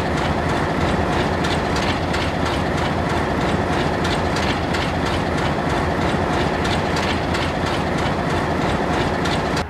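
A diesel freight train led by Delaware-Lackawanna locomotives runs by steadily. The engines rumble and the wheels clack over the rail joints.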